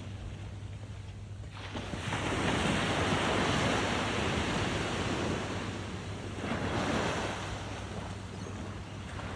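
Waves breaking and washing up the beach: one wash swells in about a second and a half in and slowly fades, and a second, smaller one comes about six and a half seconds in. Wind rumbles on the microphone underneath.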